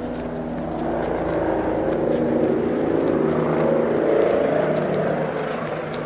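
A motor vehicle's engine running in the street, growing louder to a peak about two-thirds of the way through, then easing off slightly.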